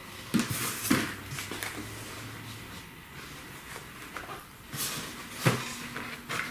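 Packaging and boxed accessories being handled by hand: rustling with a few sharp knocks and taps, the loudest about five and a half seconds in.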